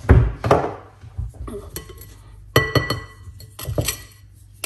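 Kitchen utensils and bowls being handled: a couple of knocks near the start, a sharper clink that rings on briefly about two and a half seconds in, and more knocks near the end.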